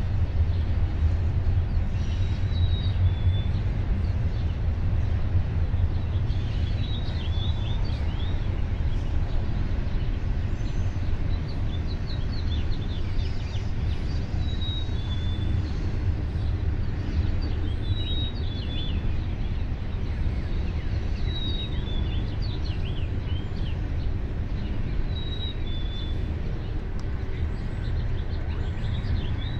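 Outdoor dawn ambience: songbirds chirping, one repeating a short high phrase every few seconds, over a steady low rumble.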